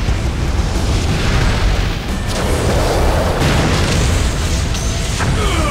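Cartoon fire-blast and explosion sound effects: a continuous booming rumble with rushing flame noise that swells about halfway through, over action music.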